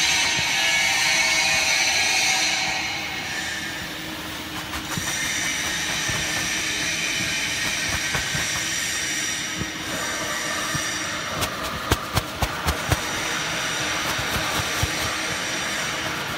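Industrial press machinery running with a steady mechanical whine and hum, louder for the first couple of seconds. About five sharp clanks come in quick succession around twelve seconds in.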